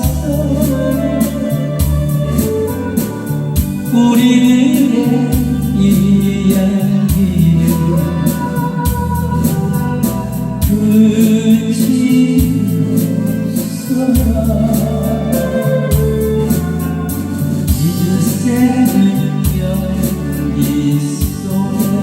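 A Korean pop song: a singer's voice over keyboard backing with a steady beat.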